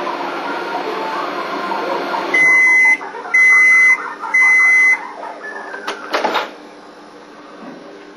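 Microwave oven signalling the end of its cooking time with three long beeps at one pitch, about a second apart, followed by a short clunk about six seconds in.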